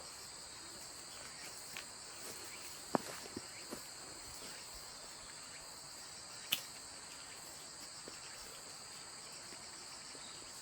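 Crickets chirring steadily in two high-pitched bands, with a few light clicks and taps scattered through, the sharpest about six and a half seconds in.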